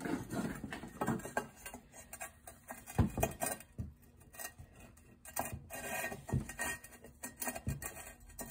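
Irregular light clicks and clinks of metal parts and hand tools being handled during suspension work, with a louder knock about three seconds in.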